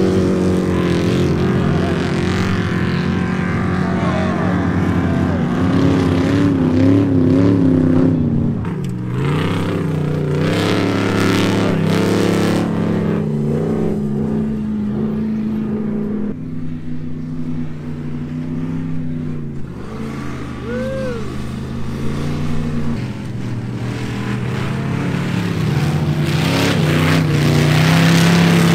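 Vehicle engines running and revving, their pitch stepping and gliding up and down, with a brief rise and fall in pitch about two-thirds of the way through and the sound growing louder near the end.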